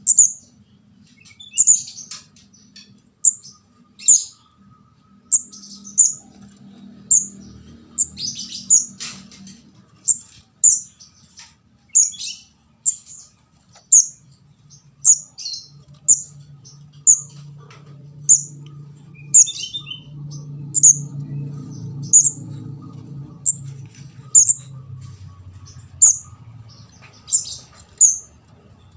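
Juvenile kemade jawa ('ndas abang') giving short, very high chip calls about once a second, repeated steadily: the begging call of a young bird, used as a lure call to draw in adults.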